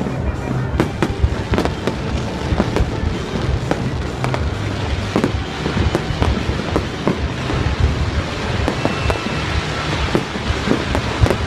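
Aerial fireworks display going off continuously: many sharp bangs and crackles, several a second, over a steady low rumble.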